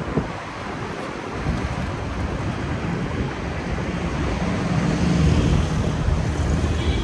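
Wind noise on the microphone of a phone held out while riding along a road, with road and traffic noise beneath it. The low wind buffeting grows stronger from about a second and a half in.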